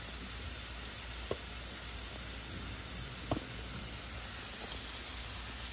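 Steady low sizzle of food frying in pans over a low gas flame, with a hamburger bun toasting in a little mayonnaise. Two faint taps come about a second and about three seconds in.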